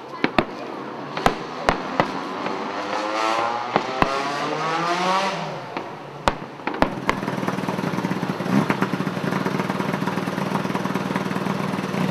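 Sharp firework bangs, several in the first seven seconds, over a racing car engine that revs up and then falls away. From about seven seconds in, an engine runs steadily.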